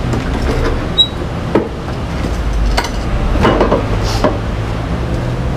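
Knocks, scuffs and metal clunks of a SYM Maxsym 400i maxi-scooter being rocked up onto its centre stand, with footsteps on stone paving. The sharpest knock comes about a second in, and a denser burst of scraping and clunking comes just past the middle as the stand takes the weight.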